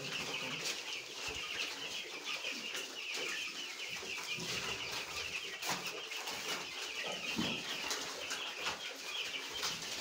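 A room full of young chicks peeping without a break, many high chirps overlapping, with a few soft knocks here and there.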